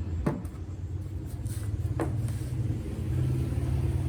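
Bass-heavy electronic music with a deep, steady bass line and two quick falling sweeps, about a quarter second and two seconds in.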